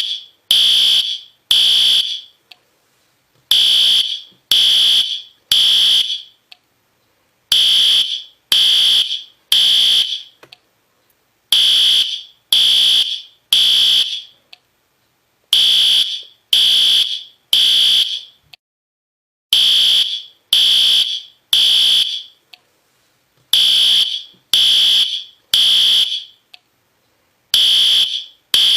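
System Sensor P2R fire alarm horn strobe sounding the temporal-3 evacuation signal. It gives groups of three short, high-pitched horn blasts about a second apart, then a brief pause, repeating about every four seconds.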